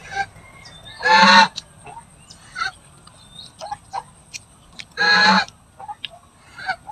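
A domestic goose honking twice, each call about half a second long, the two about four seconds apart.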